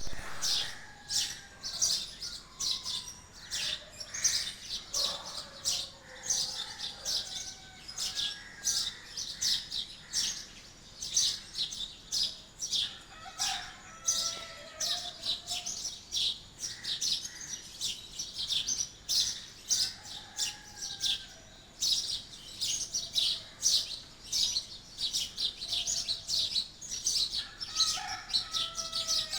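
A flock of small birds chirping: many short, high chirps overlapping in quick succession, with now and then a lower, sliding call among them.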